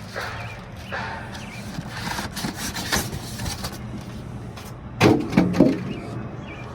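Cardboard box and packaging being handled as a heavy electric scooter is worked out of it: rustling and scraping, with a cluster of heavy knocks about five seconds in.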